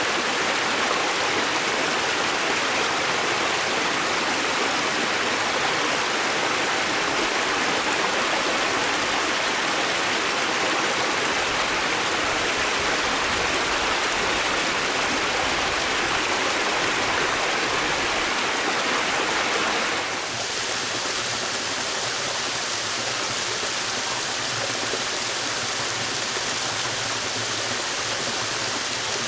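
Mountain headwater stream rushing steadily over rocks. About two-thirds of the way through it cuts to a different stretch of stream, a little quieter.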